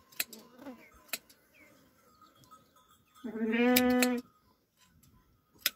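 A sheep bleating once, a steady-pitched call about a second long starting a little over three seconds in. A few sharp clicks come before and after it.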